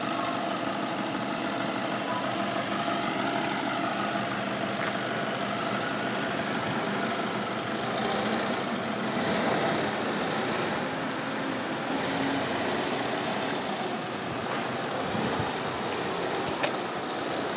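Engines running steadily: a semi truck idling close by, with a forklift's engine at work nearby.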